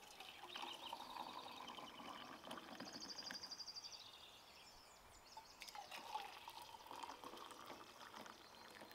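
Coffee poured from a Stanley French press into two stainless steel camp mugs, one after the other, faint, with a short pause about halfway between the two pours.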